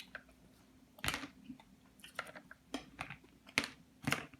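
Close-up eating of a seafood boil: about half a dozen irregular sharp clicks and smacks from mouth and food, the loudest about a second in and again near the end.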